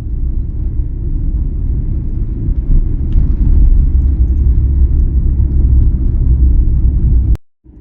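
Loud, steady low rumble of a vehicle heard from inside, cutting off abruptly near the end.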